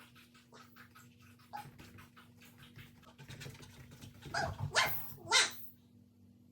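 Border collie puppy barking a few times in a short burst, loudest about five seconds in, after a stretch of faint clicks and scuffles.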